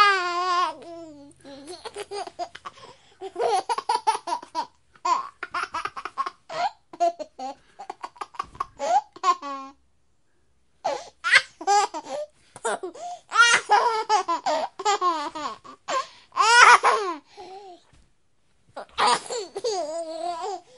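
Fits of high-pitched laughter in quick repeated bursts, with a brief break about ten seconds in.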